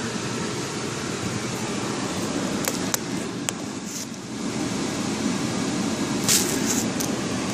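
Steady hum and rush of air inside the cab of a 2009 Chevrolet Colorado, its engine idling and its ventilation fan blowing. A few light clicks about three seconds in, and a brief hiss near the end.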